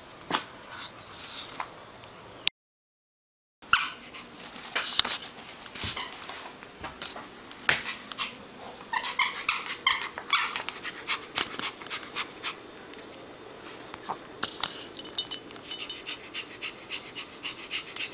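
Small Pomeranian dog whimpering and giving short yips, among many short sharp clicks and taps. There is a brief dead silence about three seconds in, and a run of high whining calls near the end.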